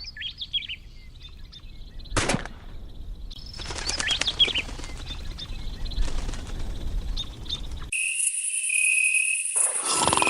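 Small birds chirping over a low outdoor rumble, with one sharp crack about two seconds in. About eight seconds in the sound cuts to music with bright chiming, bell-like notes.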